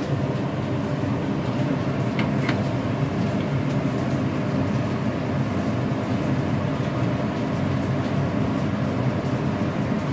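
Steady low kitchen rumble running throughout, with two faint metal clinks about two seconds in as a spoon works in a metal ladle of melting sugar.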